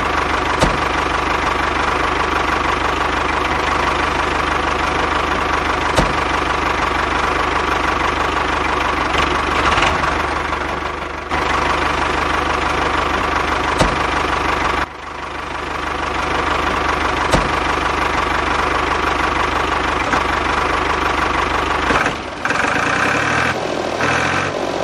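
Tractor engine running steadily. The sound breaks off and picks up again a few times.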